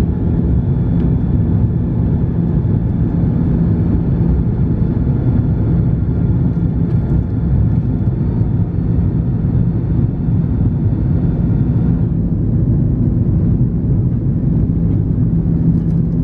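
Steady in-cabin noise of an Airbus A330-300 climbing after takeoff, its General Electric CF6 engines heard from a window seat behind the wing: a loud low rumble with a faint high whine that fades about twelve seconds in.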